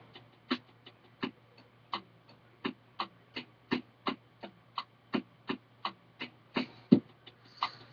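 Irregular clicking, about two to three sharp clicks a second, over a steady low electrical hum.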